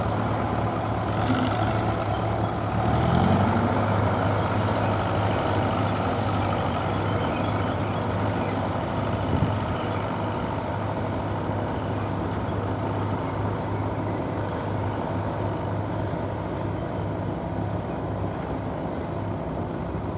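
Fordson Major tractor engine running steadily under load as it pulls a spring-tine cultivator through ploughed soil. Its note rises briefly about three seconds in.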